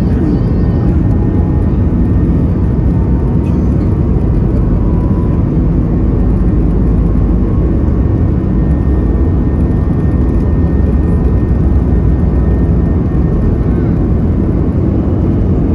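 Airbus A320 cabin noise during takeoff: a loud, steady roar from the jet engines, with a faint steady whine over it.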